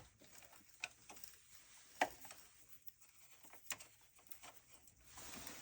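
Quiet, scattered clicks and taps of insulated pliers handling a circuit breaker in a breaker panel, with three sharper clicks spread through and fainter ticks between.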